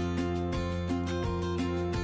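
Background instrumental music, a melody moving over sustained chords at a steady level.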